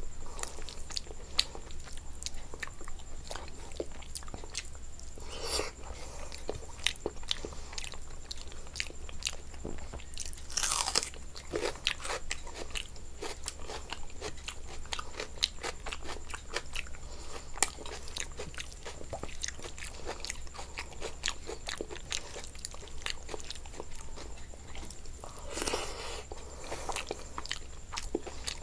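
Close-miked chewing and biting of food, with a dense run of crisp crunching clicks and a few longer, louder mouth sounds now and then.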